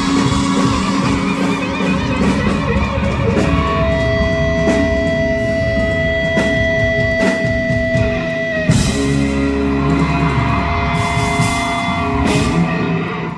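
Live rock band playing electric guitars and drum kit, with no vocals. A long held note runs through the middle, the playing shifts a few seconds later, and the sound falls away at the very end.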